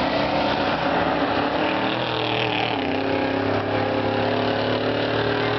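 Several race buses' engines running together at speed in a steady, overlapping drone, a few engine notes drifting up as the buses accelerate.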